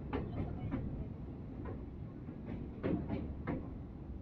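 Passenger train coach running over a riveted steel truss railway bridge, heard from the coach doorway. There is a steady low rumble, with sharp wheel clacks at uneven intervals; the loudest come about three seconds in.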